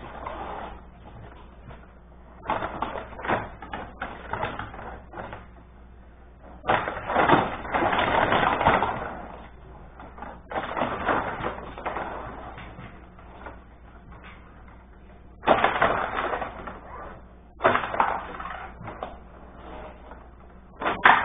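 Rod hockey game on a Benej table: the metal rods sliding and spinning the plastic players, with rapid clattering clicks and knocks of the puck against the players and boards. It comes in irregular flurries of a second or two, with quieter lulls between them.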